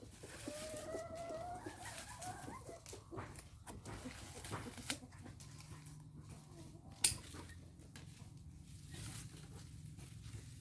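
A chicken calls once for about two and a half seconds with a slightly rising pitch. Two sharp clicks follow, one about five seconds in and one about seven seconds in.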